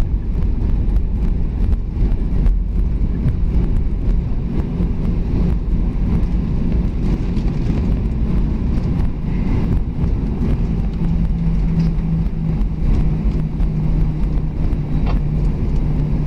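Cabin noise of an Airbus A320 rolling out and slowing after touchdown: a steady low rumble of the engines and wheels on the runway, with light knocks from the surface. A low steady hum comes in about two-thirds of the way through.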